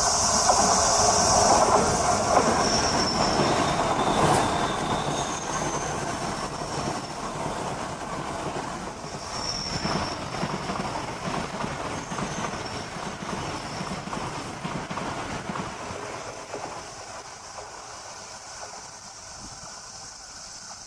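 Train running on the rails, wheels rumbling with a few brief high-pitched squeals in the first half, the sound gradually fading away as it recedes.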